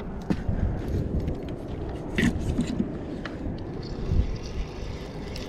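Knocks and bumps of someone moving about a boat deck and handling a spinning rod, then a spinning reel being wound, starting faintly a few seconds in.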